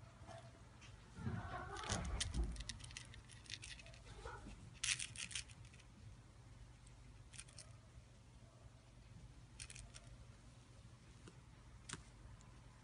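Crinkling and clicking from a kitten playing with a fluffy toy mouse: short clusters of crisp clicks, densest two to three seconds in, and a few soft thumps near the start, over a faint low hum.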